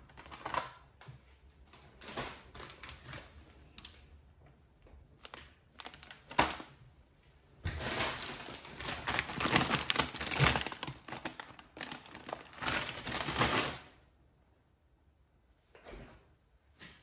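Plastic food packaging crinkling and rustling as grocery packs are handled and set down on a glass cooktop, with scattered light clicks and rustles at first, then a long run of loud crinkling lasting about six seconds from around the middle.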